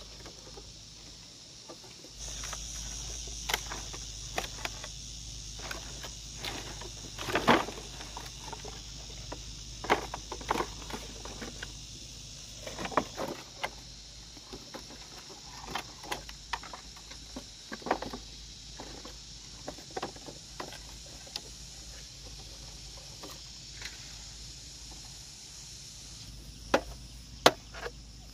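Insects buzzing steadily from about two seconds in, over scattered knocks and rustles. Near the end come several sharp strikes of a hand tool chopping into the ground.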